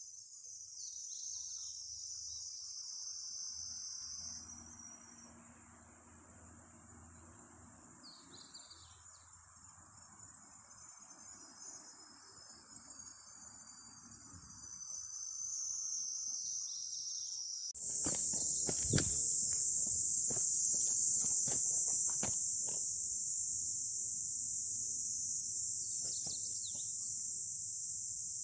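A steady, high-pitched chorus of insects that jumps suddenly louder about two-thirds of the way through, with a short run of knocks and rustles just after the jump.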